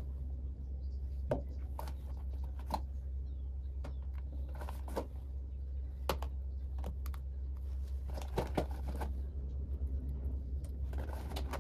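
Small plastic toiletry containers handled and set down on a stone countertop: scattered light clicks and taps, a few a second at most, over a steady low hum.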